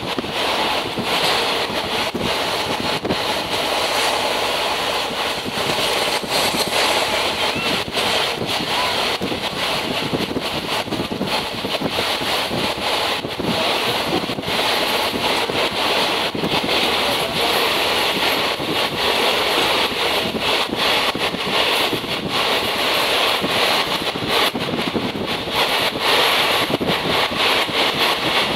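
Steady running noise of a moving train heard from the carriage, with wind buffeting the microphone in irregular gusts.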